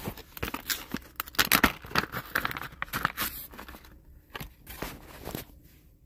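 A plastic bag being torn open and crinkled by hand, a run of irregular crackles and rustles that dies away about five and a half seconds in.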